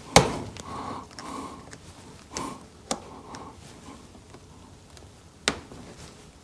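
A few sharp metal clicks and taps, a couple of seconds apart, as a small pick is worked against the clip of a snowblower's roller-chain master link, the loudest one just after the start.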